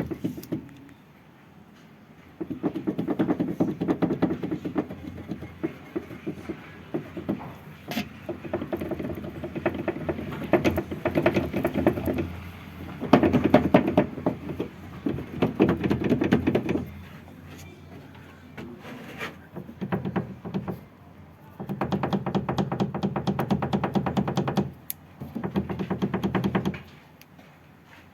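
Rapid knocking and rattling from the rear of a Renault Logan, in runs of several seconds with short pauses between them. The owner traces it to the handbrake cable.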